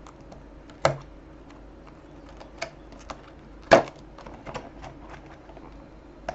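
Handling noise from a small boxed compact mirror and its packaging: scattered clicks and taps, with two sharper knocks, one about a second in and a louder one a little before four seconds in.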